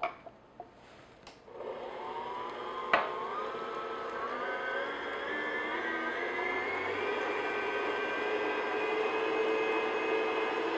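Electric stand mixer starting up about one and a half seconds in and beating milk into cake batter. Its motor whine rises in pitch for a few seconds, then holds steady. A few faint clicks come before it starts, and there is one sharp click shortly after it starts.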